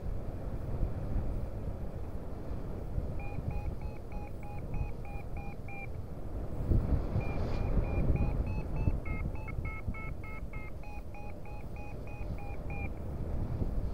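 Paragliding variometer beeping in quick, evenly spaced pulses, its climb tone signalling rising air; the beeps start about three seconds in, pause briefly a little past halfway, then resume slightly higher in pitch. Wind rushes over the microphone throughout, gusting louder near the middle.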